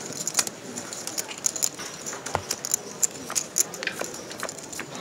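Poker chips clicking against each other in quick, irregular clacks as a player stacks and gathers them by hand, over a low murmur of voices.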